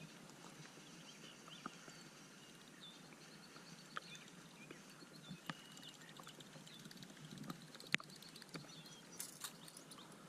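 Faint outdoor ambience with distant birds chirping and a few short, sharp clicks.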